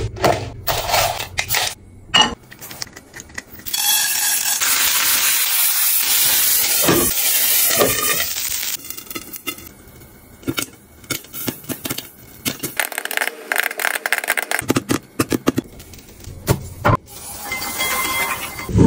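Kitchen utensils clinking and knocking against dishes and pans, with a stretch of steady hiss from about four to nine seconds in.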